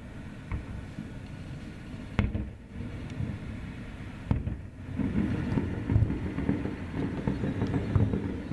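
Aerial fireworks bursting: single sharp booms about two and four seconds in, then a dense low rumble of overlapping bursts.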